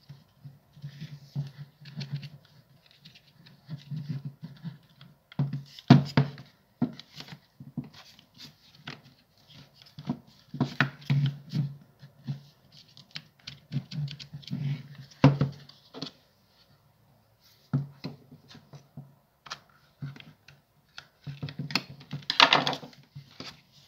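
Handling noise from a Makita cordless impact driver being reassembled: irregular clicks, taps and scrapes of its plastic housing and parts, with a few sharper knocks.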